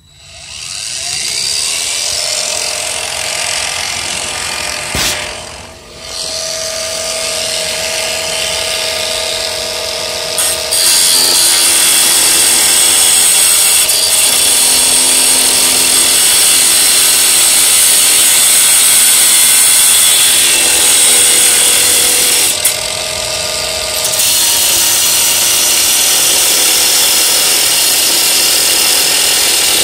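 Bauer 4.5-inch 20-volt cordless angle grinder spinning up and grinding down screw ends that stick out of wood, a steady motor whine under the grinding. It eases off briefly twice and grinds louder and harsher from about a third of the way in.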